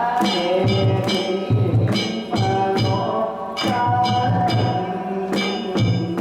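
Danjiri festival music: a taiko drum beating together with the sharp ringing strikes of hand-held gongs.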